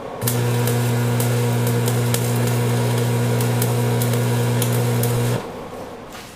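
Stick-welding arc from an old Marquette 180 special AC buzz box welder set at 110 amps, welding cast iron: a steady electrical buzz with crackle that runs for about five seconds and stops as the arc is broken.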